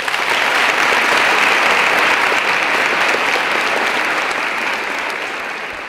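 Audience applauding, a dense steady clapping that starts at once and eases off slightly near the end.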